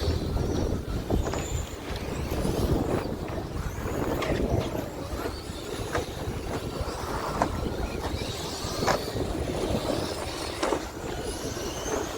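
Several 2WD short course RC trucks racing on asphalt: high electric motor whines rising and falling as they speed up and slow down, over tyre noise, with short knocks from bumps and contacts scattered throughout.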